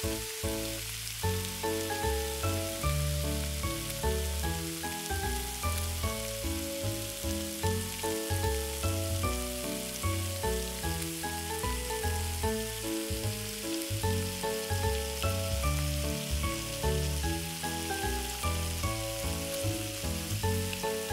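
Miniature toast frying on a small hot griddle, with a steady, even sizzle. Background music with a melody and a pulsing beat plays over it.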